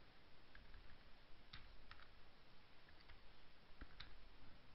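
Faint, scattered clicks of a computer keyboard being typed on, a handful of separate keystrokes over low room noise.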